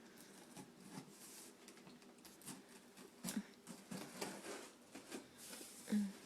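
Rustling, scratching and crinkling of a taped cardboard gift box being opened and its wrapping handled, in irregular bursts, with a louder knock near the end.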